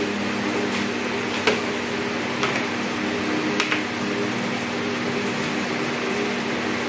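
A steady machine hum with a low droning tone, the kind of hum room air conditioning makes. A few light clicks and knocks come in the first four seconds.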